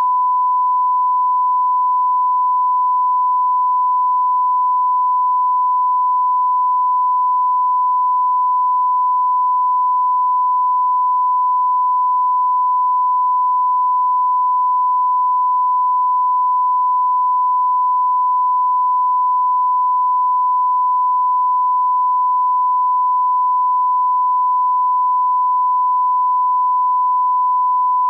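Continuous 1 kHz test tone, one pure pitch at constant level, filling the commercial-break slot in place of the ads.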